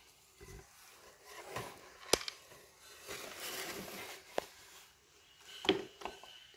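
Handling noise: rustling with three sharp clicks or taps, about two seconds in, just past four seconds, and near the end.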